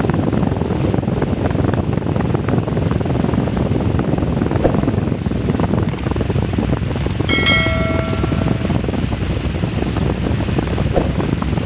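Steady, loud rumbling noise. About seven seconds in, one brief clear tone sounds for about a second, and a few faint clicks come and go.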